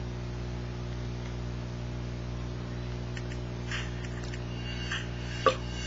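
Steady electrical mains hum with a low buzz, with a few faint clicks and one sharper click near the end.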